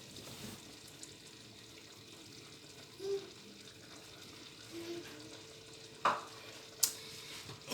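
Thick egusi soup in a pot, stirred with a spoon as it cooks: a faint steady sizzle, with two sharp clicks near the end.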